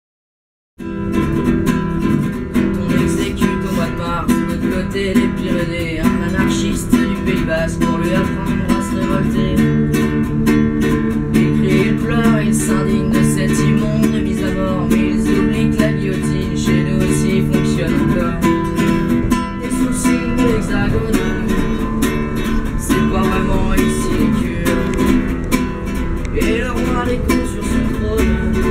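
Acoustic guitar being played as a song accompaniment, starting about a second in and continuing steadily.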